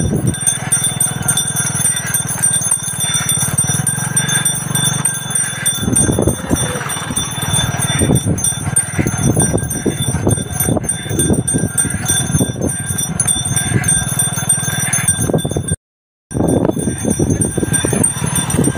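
Bells on a pair of trotting Khillar bullocks jingling steadily, with hooves clopping on the tarmac and the wooden bullock cart rattling. The sound cuts out briefly near the end.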